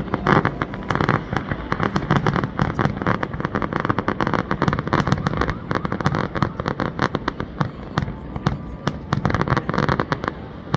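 An aerial fireworks display, with shells bursting in quick succession: many sharp bangs and crackles overlapping, several a second, over a low rumble.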